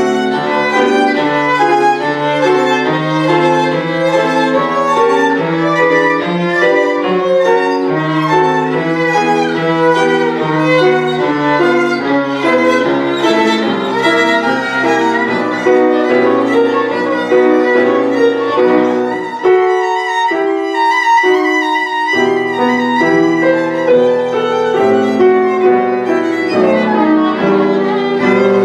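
Solo violin playing a fast passage of rapid short notes over piano accompaniment. The piano's low notes drop out for about two seconds about two-thirds of the way through while the violin keeps going.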